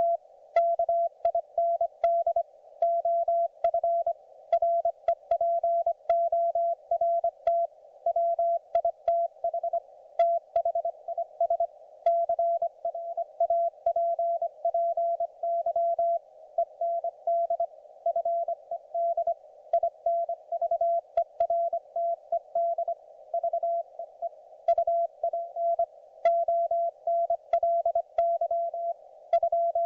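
Morse code (CW) from a YouKits HB-1B QRP ham transceiver: a single steady beep keyed on and off in short and long elements, sending continuous characters, with faint hiss from the receiver between them.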